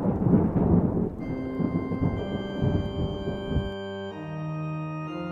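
A rumble of thunder that dies away over the first few seconds, while sustained pipe-organ chords come in about a second in and build into a held chord.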